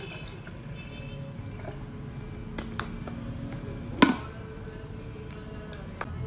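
An electric kettle's plastic lid snapping shut with one sharp click about four seconds in, after a couple of lighter clicks as it is handled, and another light click near the end. Faint music plays underneath.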